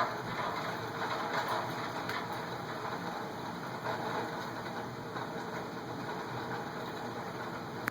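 Heavy thunderstorm rain falling in a steady, dense hiss.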